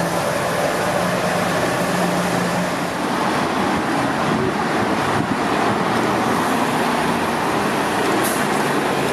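Double-decker bus engines running and road traffic passing on a wet street: a steady low engine hum over a constant rush of tyre and traffic noise.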